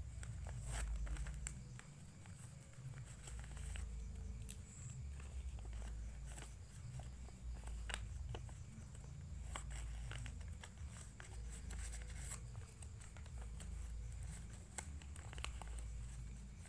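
A sheet of paper being handled, folded and creased by hand, with irregular crinkles and crackles over a steady low rumble.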